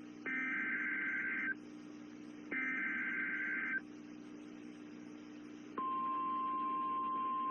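NOAA Weather Radio SAME alert header: two shrill, buzzing digital data bursts, each about a second long and a second apart, with a quiet hum between. About six seconds in, the weather radio's warning alarm starts as one steady, unwavering tone, announcing a new severe thunderstorm warning.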